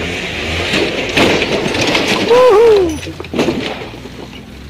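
Side-by-side UTV tipping over backward on rock and crashing onto its roof: a run of clattering impacts and scraping, with a person crying out loudly in the middle and again briefly after.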